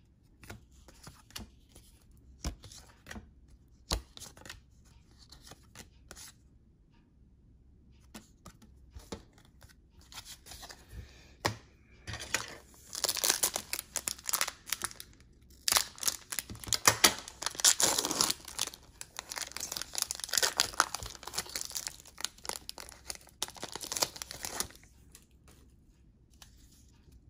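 Light scattered clicks of cards being handled, then, about halfway in, a long stretch of dense crinkling and tearing of trading-card pack wrappers, broken by short pauses and stopping near the end.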